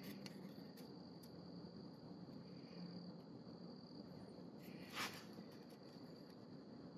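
Quiet work sounds with a steady high-pitched whine underneath: a few light metal clicks in the first second, then a short metallic scrape about five seconds in as a feeler gauge goes into the end gap of a piston ring set in a cylinder bore.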